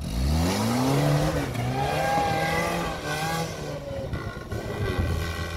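Lada Niva's four-cylinder petrol engine revved up sharply as the car pulls away hard through snow, held at high revs, then easing back to a lower note about four seconds in.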